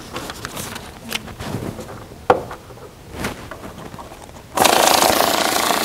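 Electric banknote counter switching on near the end and running loud, rapidly riffling a stack of bills with a steady mechanical rattle. Before that there are a few light taps and clicks as bills are handled.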